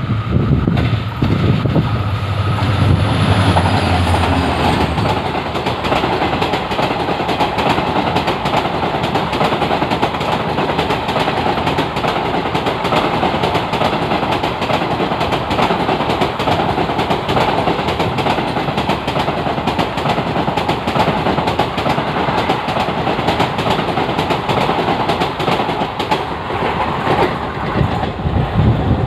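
EMD WDP4D diesel locomotive passing close below, its engine drone strong in the first few seconds while a high whine falls in pitch. A long rake of coaches then rolls past with steady wheel and rail noise and a fast clickety-clack of wheels over rail joints.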